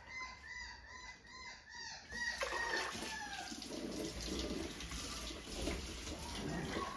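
Four-week-old Labrador puppy crying in short, repeated high-pitched squeals, about three a second. About two seconds in, the kitchen sink's pull-out sprayer starts running water over it, with a falling whine as the water begins.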